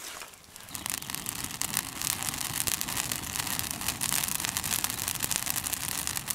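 Campfire of split kindling with a dry bird's-nest tinder bundle catching and burning, a dense crackle over a steady rushing noise that sets in about a second in.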